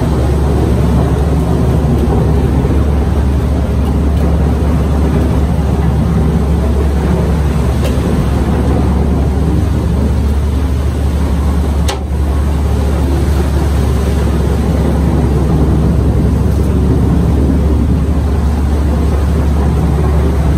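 Boat engine running steadily with a deep, even hum. A single short click comes about twelve seconds in.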